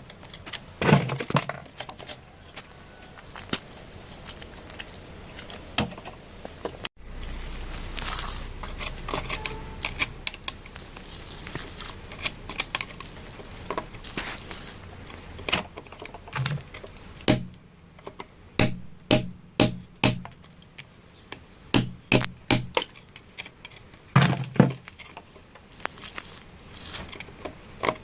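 Hand tools digging for crystals in rock and soil: irregular clicks, knocks and scrapes, with a stretch of steadier rustling noise after a sudden cut about seven seconds in.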